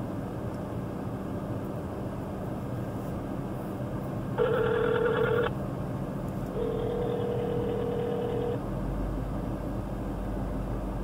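Ringback tone from a mobile phone on speaker while an outgoing call rings: a short, louder tone about four seconds in, then a two-second ring about six and a half seconds in, over a steady low hum.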